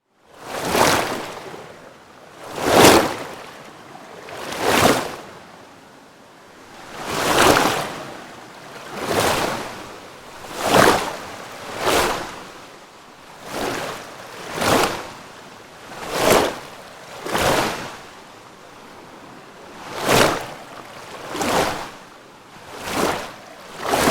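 Water splash sound effect: a series of about fifteen separate swells of rushing water, each building up and dying away within a second or so, one every one to two seconds.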